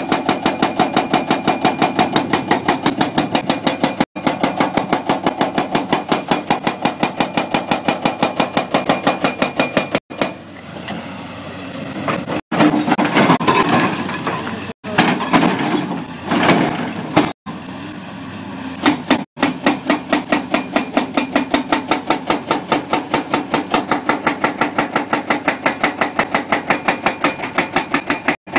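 CMB CM 550 TP hydraulic breaker on a CAT 345 excavator hammering in rapid, evenly spaced blows. Partway through, the hammering stops for several seconds, leaving irregular machine noise and clatter, then resumes.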